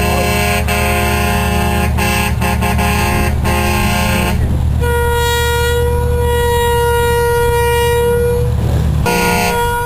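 A vehicle horn is held in one long, steady blast for about four seconds in the middle, over a constant low engine rumble. A chord of several steady tones fills the first four seconds and returns briefly near the end.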